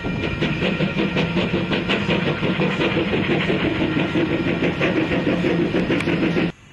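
NZR AB-class steam locomotive 663 moving slowly past at close range, steam hissing from its open cylinder drain cocks over a rapid run of beats and clanks. The sound cuts off suddenly near the end.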